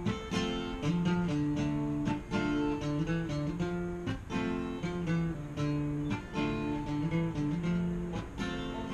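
Small acoustic string band with a tuba playing a tune: strummed and plucked guitar-like strings over long held tuba bass notes.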